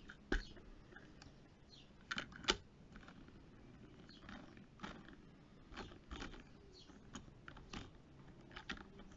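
Faint scattered plastic clicks and taps from handling a refillable plastic spray bottle as its spray head is fitted on, the sharpest about half a second and two and a half seconds in.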